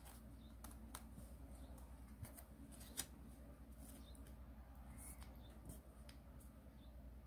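Faint rustling and crinkling of a sheet of origami paper being folded and its creases pressed flat by hand, with scattered soft ticks and one sharper crackle about three seconds in, over a low room hum.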